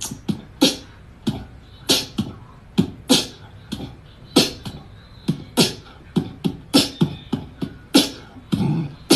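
A beatbox-style percussion beat: low kick-like thumps and crisp snare- and hi-hat-like hits in a steady rhythm, a strong hit about every second and a quarter with lighter hits between.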